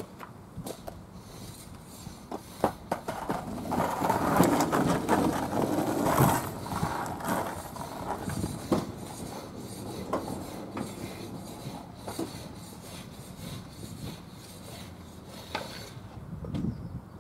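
Skateboard wheels rolling over rough asphalt, growing louder as the board passes close from about four to seven seconds in, with a sharp clack near the loudest point. Scattered lighter clicks and knocks of the board follow.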